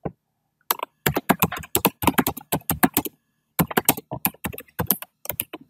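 Typing on a computer keyboard: a quick run of keystrokes starting about a second in, with a short pause about halfway.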